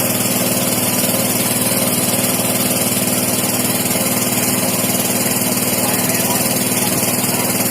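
Small engine running steadily and loud, close by, with a fast even firing beat.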